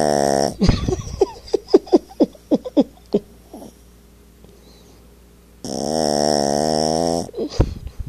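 A Yorkshire terrier snoring in its sleep. There is a long buzzing snore, then a quick run of about ten short snorts. After a pause of about two seconds comes another long buzzing snore near the end.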